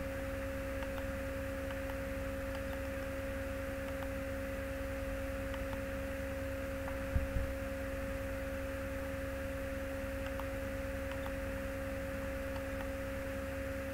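Steady electrical hum in the recording: a constant high tone with a lower tone beneath it. A few faint clicks and one short low knock come about seven seconds in.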